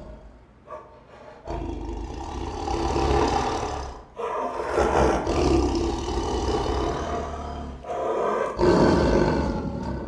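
Sumatran tiger growling: three long, rough growls, the first starting about a second and a half in and the last near the end.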